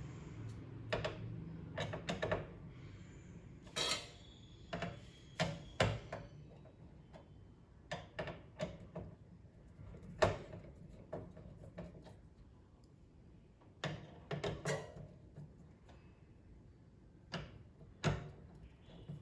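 Small computer hardware being handled during a CPU cooler fitting: irregular clicks and light knocks of plastic and metal parts, some in quick pairs, with a faint low hum at the start that fades.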